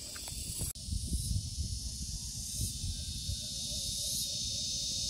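A steady, high-pitched insect chorus that swells every couple of seconds, with wind rumbling on the microphone.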